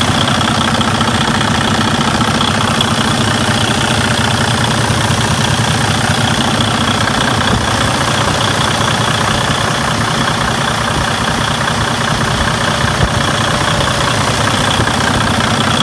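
Detroit Diesel DD15 inline-six turbo diesel idling steadily, heard close up in the open engine bay. It is the engine's first start after its cam housing was reinstalled.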